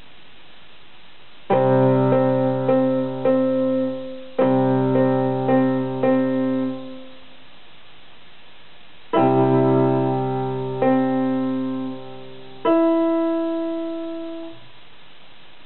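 Portable electronic keyboard played in its piano voice: short phrases of chords and single notes, each note ringing out and fading, starting about a second and a half in, with a pause of about two seconds midway.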